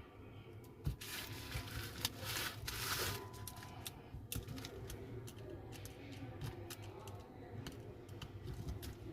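Small tools and phone parts being handled during a smartphone screen replacement: scattered light clicks and taps, with a brief hissing rush about two seconds in.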